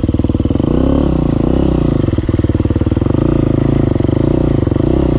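Dirt bike engine running under load as it is ridden, the revs rising and falling several times.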